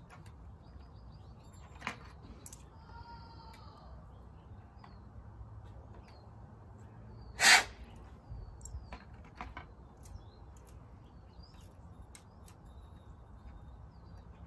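Light clicks and rustling from hands working on a small control-line model airplane with a Cox .049 glow engine. About halfway through there is one short, loud noisy burst.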